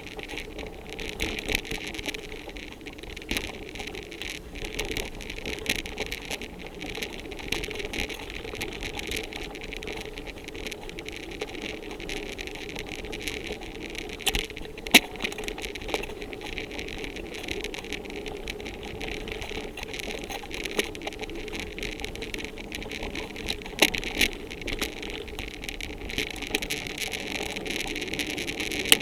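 Bicycle riding over a bumpy forest trail: steady rolling and rushing noise, with scattered sharp rattles and knocks from the bike over bumps. The sharpest knock comes about halfway through.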